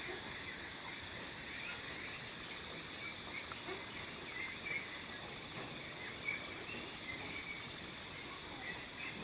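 Faint animal chorus: a steady high-pitched drone with many small chirping calls scattered over it.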